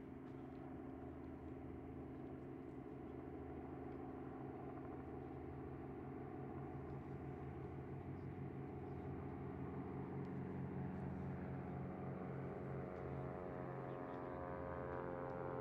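Boeing 727's three Pratt & Whitney JT8D turbofan engines at taxi power: a steady jet whine over a rumble, growing gradually louder as the jet rolls closer, with the whine getting sharper near the end.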